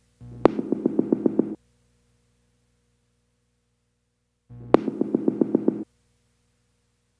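Electronic background music: two short synthesizer phrases, each a little over a second long and made of quickly repeated notes starting on a sharp hit, with silence between them.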